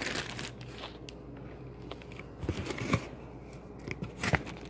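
Thin plastic bag wrapping and crumpled packing paper crackling and crinkling as hands work at the package, in scattered short crinkles and clicks, the sharpest about three seconds in and near the end.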